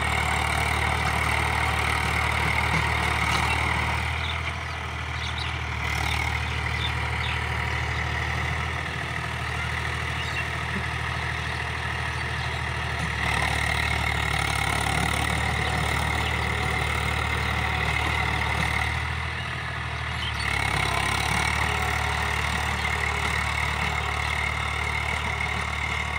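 Mahindra tractor's diesel engine running steadily while it drives a rotary tiller through the soil, its pitch and loudness easing briefly twice.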